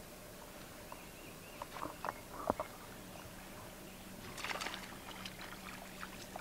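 Water lapping and sloshing faintly against a fishing boat's hull, over a low steady hum. A few light clicks come about two seconds in, and a brief splashy burst follows about four and a half seconds in.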